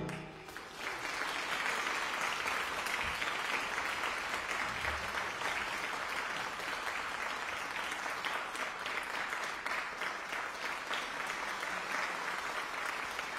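Audience applauding steadily, starting about a second in as the ring of the final piano and drum chord fades.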